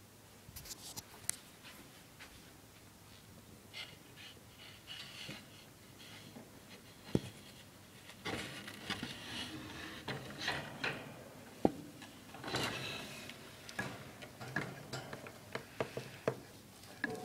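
A wire hamster cage being handled: irregular clicks and knocks on the metal bars and wooden platform, with short bursts of rustling, as a hand puts a corn cob inside.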